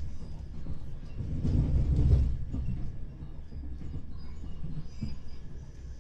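Running noise of a Class 377 Electrostar electric train at speed, heard from inside the carriage: a steady low rumble of wheels on track. The rumble swells louder for about a second around two seconds in, as another train passes close alongside.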